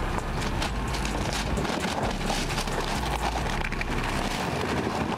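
2020 Land Rover Defender creeping slowly uphill in low range, its tyres crunching and crackling over loose rocks and gravel, with the engine running low and steady underneath.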